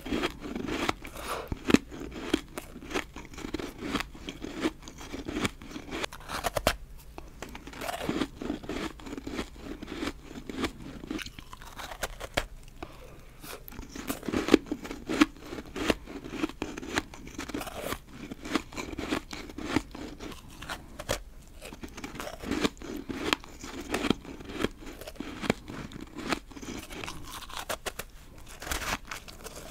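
Crunching and chewing of a snowball of refrozen powdery ice, frozen dry and powdery inside: rapid crisp crunches, bite after bite, with a few short pauses.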